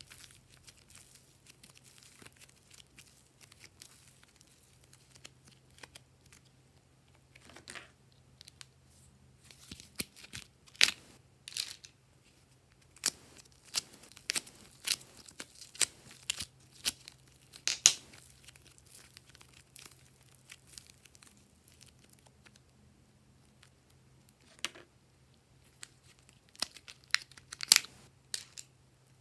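Glossy slime being squished, stretched and folded by hand, giving off irregular sharp sticky pops and crackles, sparse at first and coming in quick runs later, over a faint steady hum.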